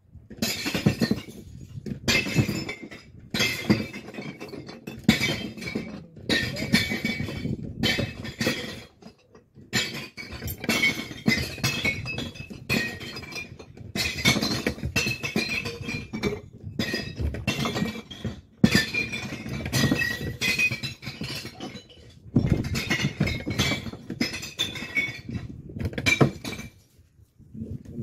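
Glass bottles being dropped one after another into a glass recycling bank, clinking and smashing against the glass already inside. The bottles go in quick succession with a few short pauses.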